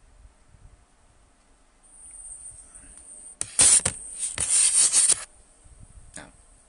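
Rustling and rubbing noise on a phone's microphone as the phone is handled and moved. A faint hiss sets in about two seconds in. Nearly two seconds of loud scraping follow from about halfway, then a short brush near the end.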